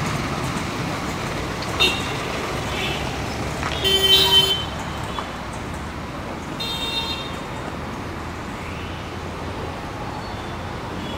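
Steady road traffic noise, with vehicle horns tooting several times, the loudest and longest toot about four seconds in.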